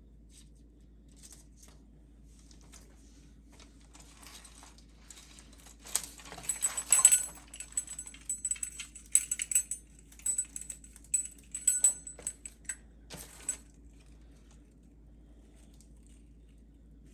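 Small hard objects being handled: a run of light clicks and rattles with a bright jingling edge, starting about six seconds in and stopping around thirteen seconds.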